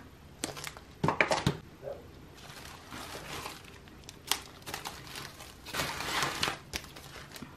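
Plastic wrapping and bubble wrap crinkling and rustling as packaged merchandise is picked up and turned over. There are scattered sharp clicks and two longer rustles, about three seconds in and again about six seconds in.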